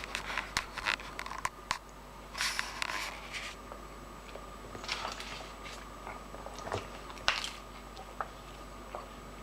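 A person eating rice and beans: chewing and mouth sounds with small clicks, coming in short scattered bursts, the sharpest click about seven seconds in.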